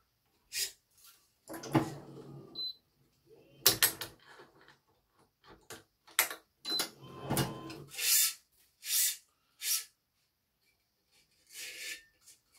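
Badminton racket being strung with Yonex BG80 string: the string swishes as it is pulled through, amid sharp clicks and knocks from the stringing machine and its clamps, about a dozen separate sounds in all.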